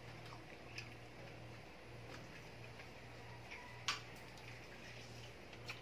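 Quiet eating sounds of a meal eaten by hand: faint mouth clicks and smacks and fingers picking at rice and grilled food, with one sharper click about four seconds in. A low hum pulses on and off underneath.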